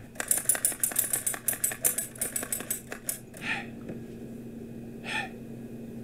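Manual typewriter keys struck in a fast run of sharp clacks for about three seconds, then the typing stops.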